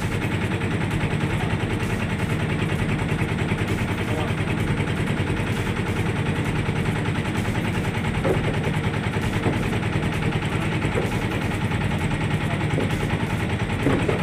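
An engine running steadily nearby, a fast even clattering beat with no change in speed.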